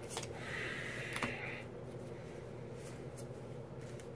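Quiet handling of Pokémon trading cards: a few light clicks and a brief soft rustle about half a second in, over a faint steady hum.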